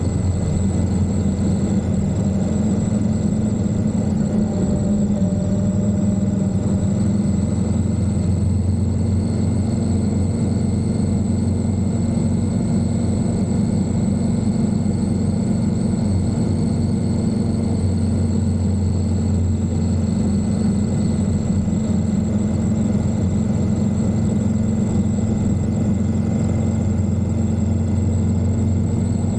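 Indian Scout motorcycle's V-twin engine running at a steady cruising speed, its note holding even with no changes of throttle.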